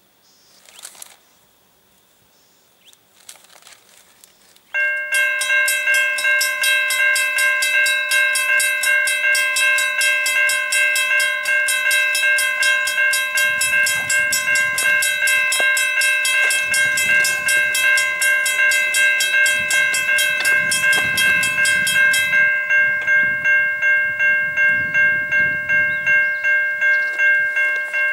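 Level crossing warning bells start up suddenly about five seconds in and ring loudly and steadily, a several-toned electronic ringing with a fast pulsing beat, as the crossing activates. A sharp, rapid high ringing drops away about three-quarters of the way through while the main tones carry on. A low rumble sits beneath them through the middle stretch.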